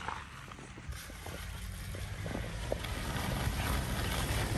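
Jeep Grand Cherokee's engine rumbling under load as it is driven slowly through a trail obstacle, getting louder toward the end, with wind on the microphone.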